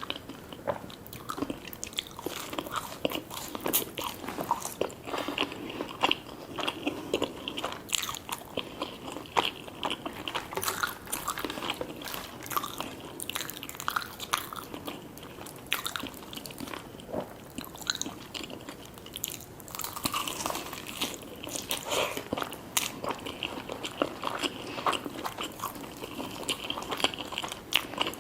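Close-miked biting and chewing of crunchy fried food, many sharp crunches in quick succession.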